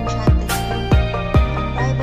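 Background electronic music with a beat of deep kick drums and sharp snare-like hits over sustained chords.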